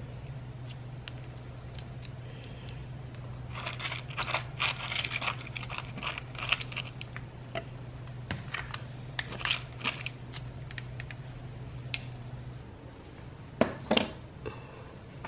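A wooden skewer stirring and scraping wet dog food in a stainless steel bowl: an irregular run of small clicks and scrapes over a steady low hum, which stops near the end. Two sharper knocks follow near the end as the bowl is set down on the floor.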